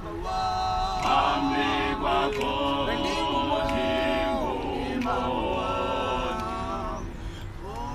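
A group of voices singing a cappella in harmony, holding long notes and sliding between them, with no instruments.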